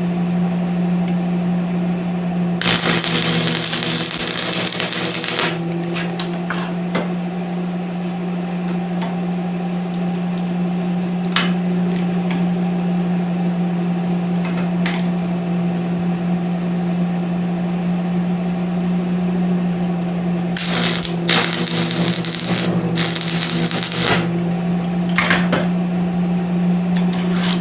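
Electric arc welder tack-welding a cut-off 1-inch bolt onto the end of a 1-inch shaft to extend it: two crackling arcs of about three seconds each, one near the start and one about twenty seconds in, over a steady hum, with a few sharp clicks and taps in between.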